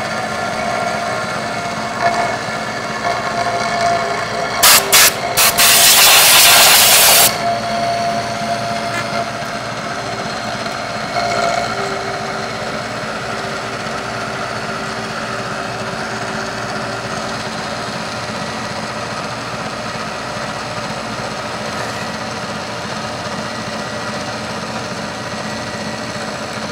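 CNC milling machine cutting metal with a small end mill, the spindle and cut making a steady whine throughout. About five seconds in, two short bursts and then a loud hiss lasting about two seconds cut across it.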